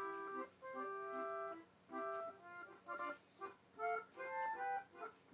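Accordion music: held chords over short, repeated bass notes, with brief pauses between phrases.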